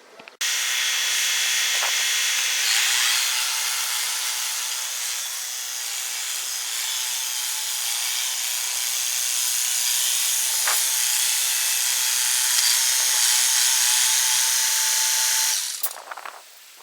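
Steady mechanical whirring noise with a few fixed tones, cutting in sharply just after the start and cutting off sharply near the end.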